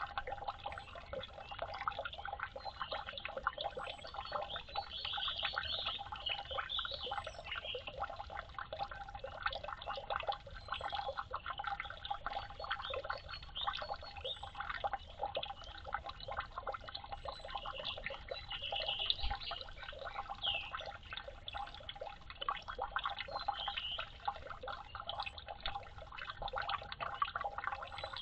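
A steady, dense patter of water dripping and splashing, with short high chirps now and then.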